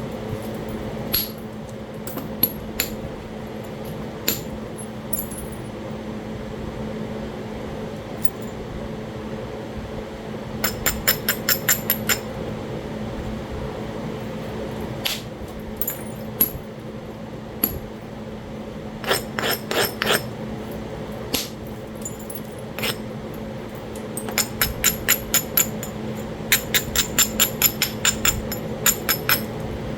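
Sharp stone-on-stone clicks and taps while flintknapping Talahata quartzite: a few single ticks, then several quick runs of rapid light strikes, the longest near the end.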